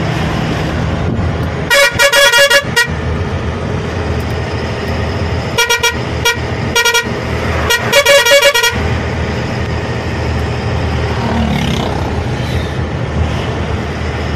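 Truck horn honking in several bursts of short, rapid toots between about two and nine seconds in. Under it, the truck's engine and road noise drone steadily inside the cab.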